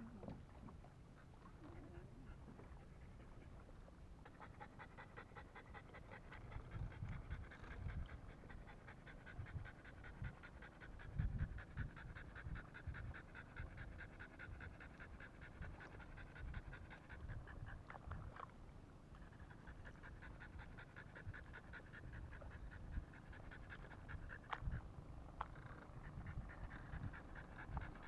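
French bulldog panting rapidly in a quick, even rhythm, with a brief pause about two-thirds of the way through. Low thumps and rumble come and go underneath, loudest a little before the middle.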